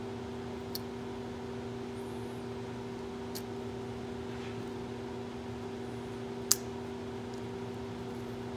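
A steady hum with two even tones runs underneath. Over it come a few light clicks of small steel parts of a diesel injection pump being handled and fitted, with one sharper click about six and a half seconds in.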